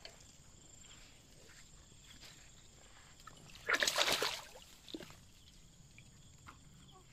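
A caught fish thrashing at the surface of shallow water, giving one loud splash about four seconds in that lasts around half a second, with a few faint splashy sounds around it.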